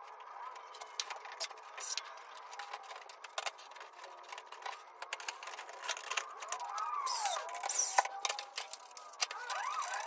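Hands working a flush-mount ceiling light fixture: small clicks and knocks of metal and plastic, with squeaky rubbing sounds about two-thirds of the way through and again near the end, as bulbs are fitted into the sockets.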